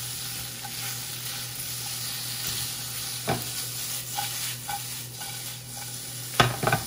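Chicken strips and sliced onion sizzling as they sauté in a hot pan, with a utensil stirring them and knocking against the pan a few times, loudest near the end.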